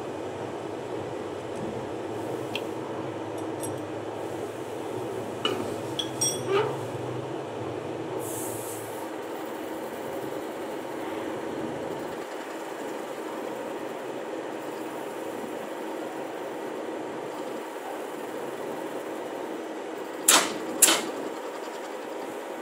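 Metal lathe running steadily while its cutting tool turns a spinning sprocket blank, with a few sharp clicks and then two loud knocks near the end.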